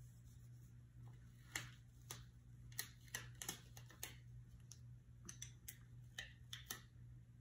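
Light clicks and taps of fingers and nails on paper planner pages as stickers are handled and pressed into place, about a dozen scattered over several seconds, over a low steady hum.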